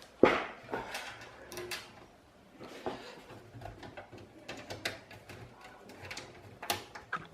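Screwdriver driving screws that fasten a power supply into a PC case: a sharp knock just after the start, then scattered clicks and scrapes of metal handling.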